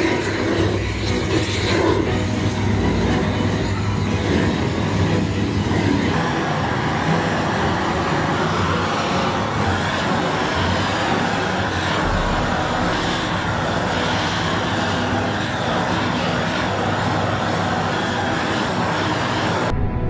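Steady, dense mechanical noise with a low hum underneath, louder in the first couple of seconds.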